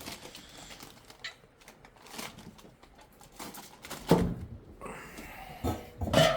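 Rummaging and handling things: scattered light clicks and knocks with some rustling, and a louder knock about four seconds in.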